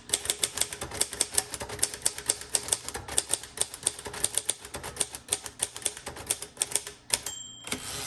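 1957 Royal Quiet Deluxe manual typewriter being typed on quickly: a steady run of key and typebar clacks, several a second. About seven seconds in, the margin bell rings once, the signal that the carriage is nearing the right margin.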